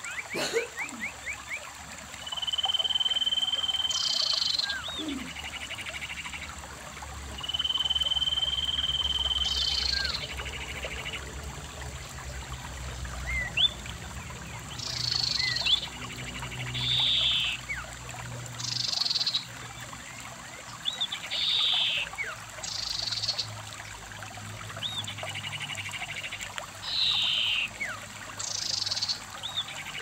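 Shallow stream running over rocks under animal calls: two long, steady whistles in the first ten seconds, then short buzzy calls every couple of seconds, with faint quick chirps between them.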